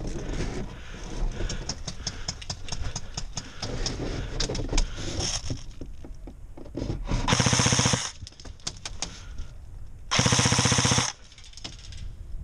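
Two short full-auto bursts from an airsoft electric rifle, an Echo 1 Troy TRX10, each under a second long: the first about seven seconds in, the second about two and a half seconds later. Before them, scattered clicks and rustling.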